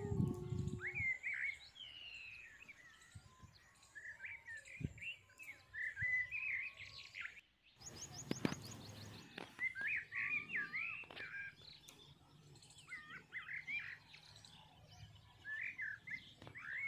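Birds chirping and calling in short warbling, whistled notes, with a brief break and a quick run of clicks about halfway through.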